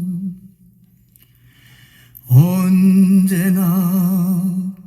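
A solo voice singing a slow Korean song: one word trails off, then after a pause of about two seconds a single long note is held with wide vibrato.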